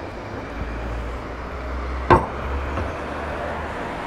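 Car on a street: a steady low rumble of engine and road noise that grows slightly louder, with one sharp knock about two seconds in.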